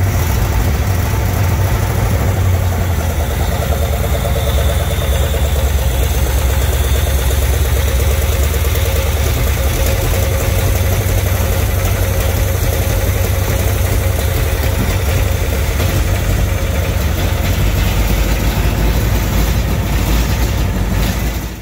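1956 Studebaker Golden Hawk's V8 engine idling steadily with the hood up, a low, even running sound.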